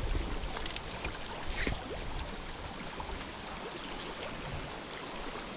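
Small creek running steadily over stones, with one brief high hiss about a second and a half in.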